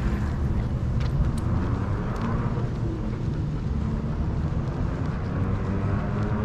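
Steady low rumble of wind and motion noise on a harness-mounted action camera's microphone as the dog walks, with a few faint clicks about a second in.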